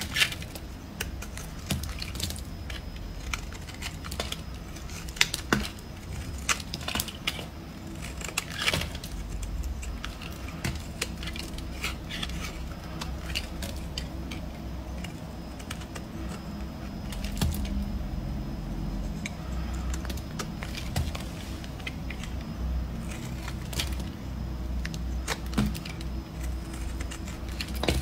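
A snap-off utility-knife blade cutting and scraping a brittle bar of soap, with irregular crisp crackles and clicks as chips snap off and drop onto the table, over a low steady hum.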